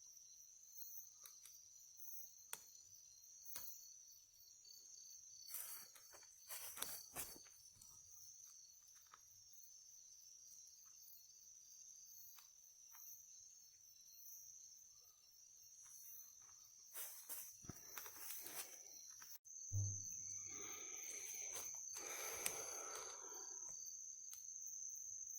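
Night insects in the forest keep up a steady, high-pitched chirring drone, with scattered faint clicks and rustles. The drone grows louder about twenty seconds in.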